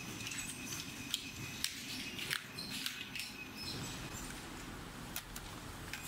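Assembly-line ambience: scattered light clicks and taps of small plastic parts being handled, over a steady low hum.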